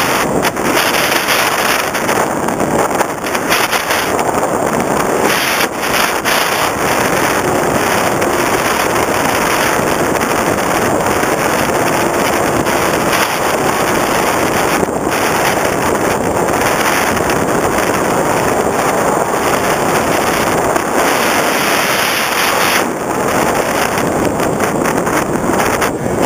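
Steady, loud rush of airflow over the onboard camera of an FPV Raptor model plane in flight.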